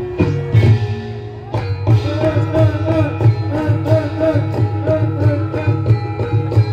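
Live Javanese jaran kepang ensemble music: a steady low drum beat under ringing tuned percussion, with a wavering melodic line coming in about two seconds in.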